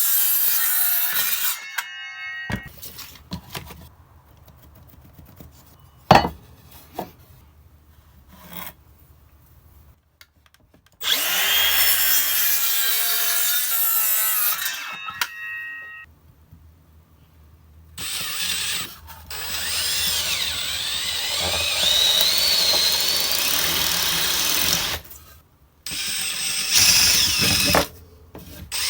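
Power tools working wood: several bursts of cutting and drilling, each a few seconds long, with sharp knocks and quiet gaps between them.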